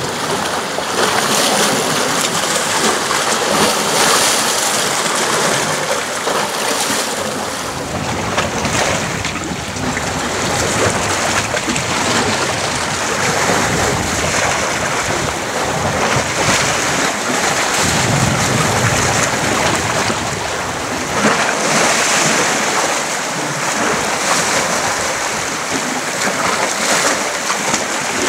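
Sea water washing and swirling over shoreline rocks, a steady rushing wash that swells and eases every few seconds.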